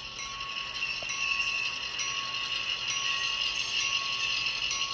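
HO scale Walthers PROTO EMD GP7 model diesel locomotive running on the track, its DCC sound decoder playing diesel locomotive sound through a small onboard speaker. The sound is thin and high-pitched and runs steadily, with a steady tone underneath.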